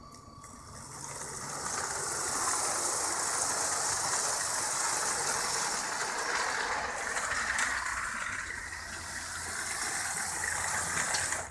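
Model train driven by two LEGO 9V train motors running along its track: a steady whirring and rattling of motors and wheels. It builds up over the first couple of seconds and cuts off suddenly near the end.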